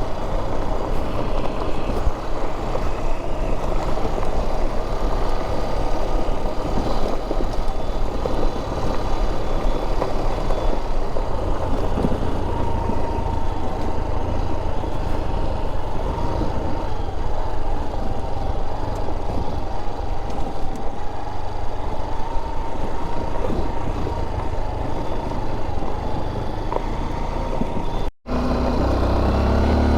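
Honda XR trail motorcycle engine running steadily while riding, with a low rumble under it. Near the end the sound cuts out for a moment, then the engine note climbs.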